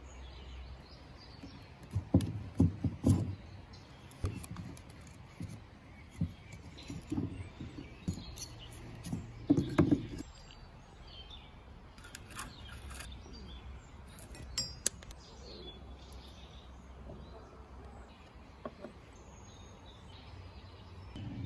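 Old wooden scale parts handled on a wooden workbench: scattered knocks and clatter, loudest about two to three seconds in and again near ten seconds, then a few sharp clicks. Birds chirp faintly in the background.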